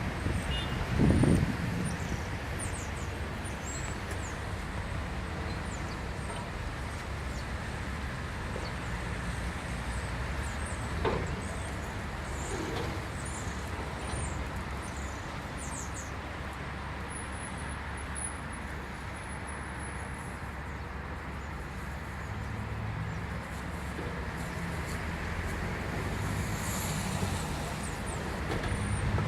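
Excavator's diesel engine running steadily, with a heavy thump about a second in and a sharp knock near the middle.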